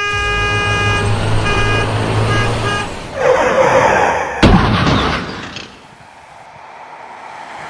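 A horn blares over a low engine rumble, first held and then in short repeated blasts. A loud rushing whoosh follows and ends in one sharp crack, then fades away.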